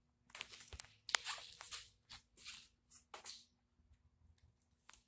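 Faint scuffing footsteps and handling rustle on a concrete floor, a few irregular steps with a couple of sharp clicks in the first second or so, then quieter, over a faint steady hum.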